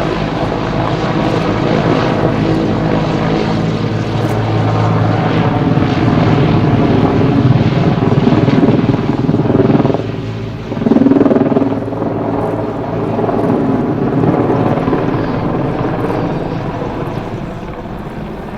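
Mil Mi-24V Hind helicopter flying past, its rotor and twin turboshaft engines running loud and steady. The noise drops briefly about ten seconds in, swells loud again, then eases off near the end.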